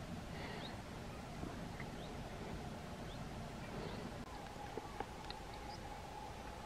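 Outdoor ambience: a low steady rumble with scattered faint, short rising bird chirps. A faint steady hum joins about four seconds in, with a few soft clicks.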